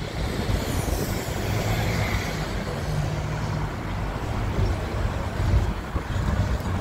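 Blackpool boat tram running along the track, heard from on board: a steady low rumble with a motor hum.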